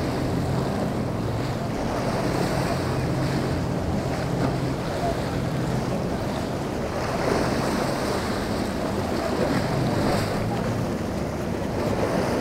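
Choppy inlet water surging and splashing against a rocky jetty, with wind buffeting the microphone. A low, steady boat-engine hum runs beneath it and fades about halfway through.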